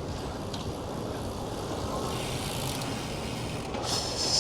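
Steady traffic and road noise heard from a moving bicycle in city streets. A brighter hiss builds near the end.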